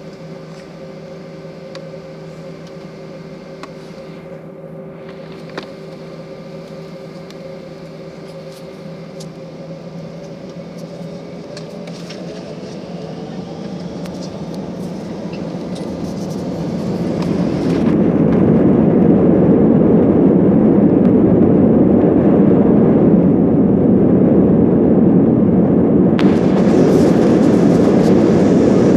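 Airliner's jet engines spooling up to takeoff power: a steady hum with a held whine that climbs slightly in pitch, then swells into a loud, even roar about two-thirds of the way through.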